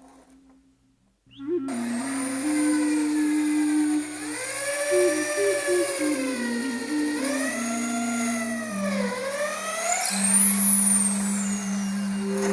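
A high-speed power tool whining, its pitch dipping and rising together several times, starting about a second in after near silence. Soft background music with a slow stepped melody plays underneath.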